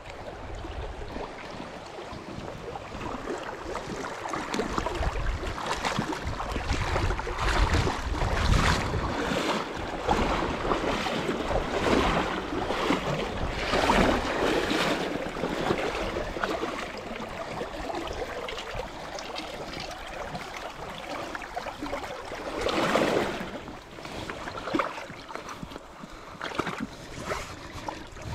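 Flowing river water splashing around someone wading through the shallows, with wind rumbling on the microphone. The sound swells and ebbs unevenly, loudest about 23 seconds in.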